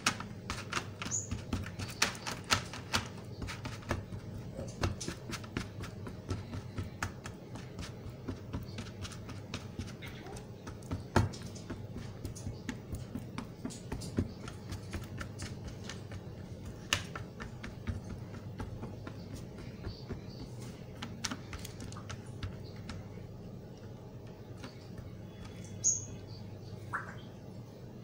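Metal spoon scraping and clicking against a metal baking tin as a sticky mass of jaggery-coated peanuts and roasted chana is spread and pressed flat. The clicks come thick and fast for the first few seconds, then more sparsely, over a low steady hum.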